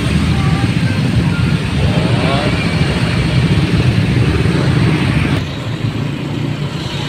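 Engines of many motor scooters running in slow, crowded traffic, a dense low rumble, with scattered voices. A little over five seconds in, the sound drops and becomes quieter.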